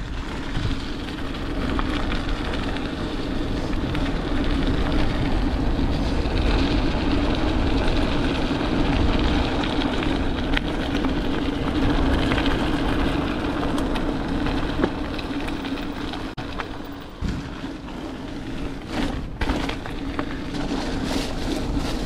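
Mountain bike riding down a forest trail: a steady rumble of tyres rolling over the ground and the bike rattling, with wind on the camera microphone. It eases off briefly about 17 seconds in.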